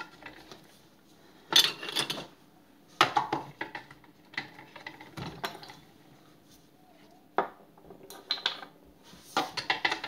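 Hard plastic clicks and clatters in several short bursts as the lid and small plastic figures of a Bluebell Toys Big Yellow Teapot playset are handled.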